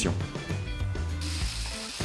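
Angle grinder being picked up and switched on: mechanical clicking as it is handled, then a steady high hiss from its motor starting about a second in, ahead of cutting the plastic riser.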